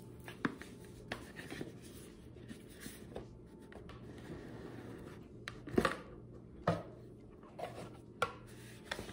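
Rigid cardboard gift box being handled and its lid opened: scattered soft knocks and taps with some rubbing of cardboard, two louder knocks near the middle.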